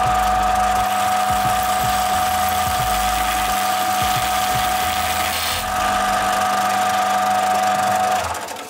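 Einhell combination belt and disc sander running with a steady whine while a small wooden disc is held against the moving sanding belt to round it. The sound fades out near the end.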